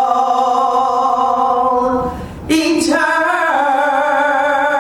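A woman singing a gospel hymn unaccompanied, holding two long notes with vibrato and taking a short breath between them about two seconds in.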